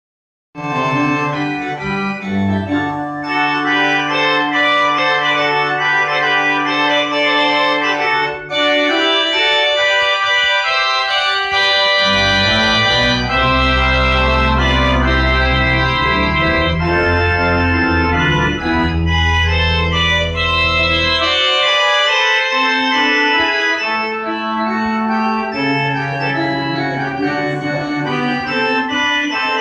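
Pipe organ playing a piece in sustained chords; deep bass notes come in about twelve seconds in and drop out around twenty-one seconds. The organ has just had its first full overhaul of bellows and reeds, which brought back its original tone.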